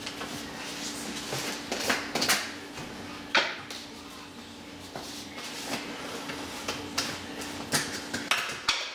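Plastic protein tubs being handled: screw-top lids twisted off, lifted and set down, giving a series of sharp clicks and knocks with scraping between them, the loudest about two and three and a half seconds in. A steady low hum runs underneath.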